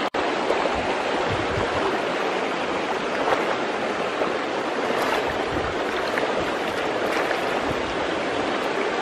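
Shallow river water flowing steadily, with a few small splashes as a hand feels among the stones under the water.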